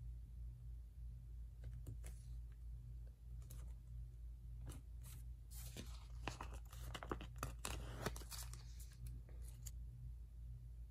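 Paper planner sticker strips being peeled off their backing sheet and the sticker sheet handled: scattered small clicks, then a run of crackling peels and paper rustles in the middle, over a steady low hum.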